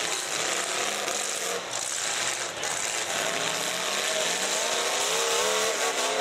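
Demolition derby cars' engines running and revving, the pitch rising and falling from about halfway through, over a steady noisy din.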